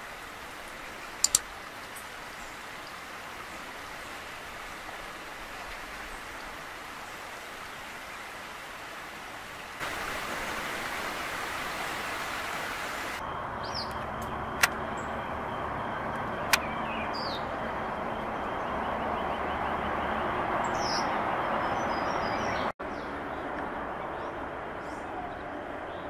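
Steady outdoor background noise with a few short, high bird calls in the second half, and a few sharp clicks.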